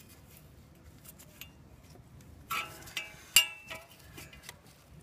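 Scattered light clicks and knocks of engine-bay parts handled by hand while the engine shroud is worked loose, with two louder sharp clinks a little past halfway, the second the loudest.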